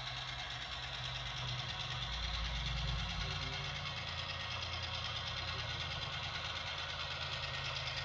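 HO-scale model diesel switcher locomotive running along the track: a steady mechanical hum with a fine, fast rattle from its motor and wheels, swelling a little two to three seconds in as it passes close.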